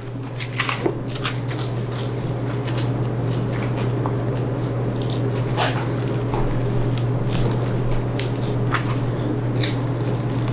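Wet squelching and tearing of beef fat and connective tissue as a boning knife works along the seam and the brisket is pulled away from a beef forequarter, with a few short sharp ticks. A steady low hum underlies it.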